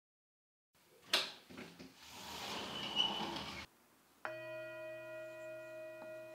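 A sharp scrape, then a hiss for about two and a half seconds that cuts off suddenly. About four seconds in, a Buddhist altar bell (rin) is struck once and rings on steadily, several pitches at once over a low hum.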